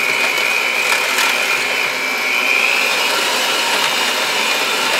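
Cuisinart 7-speed electric hand mixer running steadily, its beaters whisking thick cake batter of sugar, oil and egg in a glass bowl, with a steady high motor whine.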